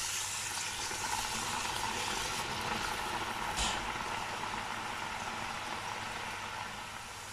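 Freshly pressed rice-flour murukku (thenkuzhal) dough deep-frying in hot oil: a steady, vigorous sizzle as the moisture in the raw dough boils off, easing a little near the end.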